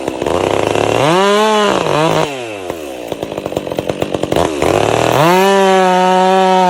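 Stihl MS 462 C-M 72 cc two-stroke chainsaw revving up to full speed about a second in, then dropping back to an uneven, sputtering idle. It revs up again about five seconds in and holds at full speed.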